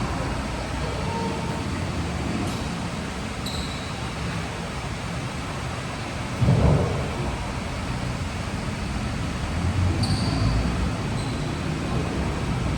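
Steady rumbling noise of a court during a ball game, with one loud thump about six and a half seconds in and a few short high squeaks.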